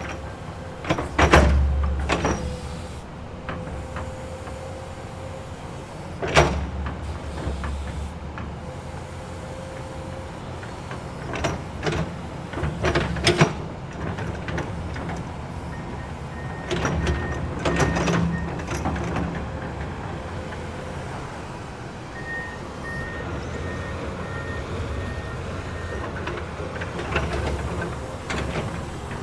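Komatsu excavator at work: its engine runs steadily with a faint whine, and heavy metallic clanks and knocks come every few seconds, the loudest about a second in and a cluster in the middle.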